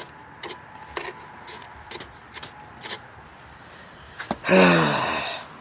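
Light clicks and knocks about every half second, then near the end a loud, low, breathy groan from a person, falling in pitch for about a second.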